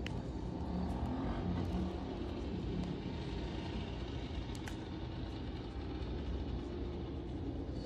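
Steady low background rumble with faint wavering pitched tones in it and a few faint light clicks.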